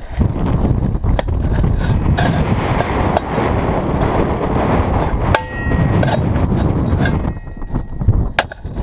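Strong wind buffeting the microphone: a loud, continuous low rumble, with scattered short ticks and knocks over it and a brief high tone a little past the middle.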